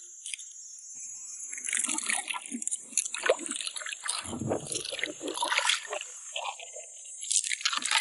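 Irregular splashing and crunchy scraping in shallow rocky seawater as a blue swimming crab is caught with metal tongs, starting about a second in, with a heavier slosh midway and another burst near the end.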